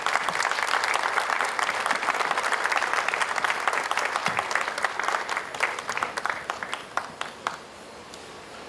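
Audience applauding at the close of a speech. Many hands clap densely, then the clapping thins to a few scattered claps and stops about seven and a half seconds in.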